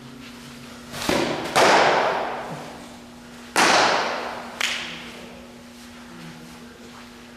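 Two sharp leather-glove pops, each echoing on for about a second in a large hall: a pitched softball smacking into the catcher's mitt, then about two seconds later the return throw popping into the pitcher's glove. A lighter click follows the second pop.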